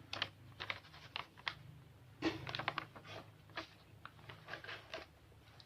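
Irregular light scratching and tapping: many short clicks and scrapes at uneven intervals, over a faint low hum.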